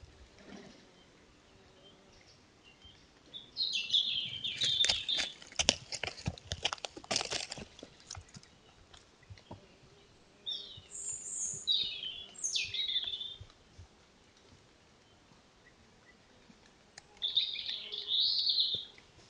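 Small birds chirping in three bursts of high-pitched calls with quiet gaps between them. The first burst is mixed with sharp clicks. The second has quick notes sweeping downward.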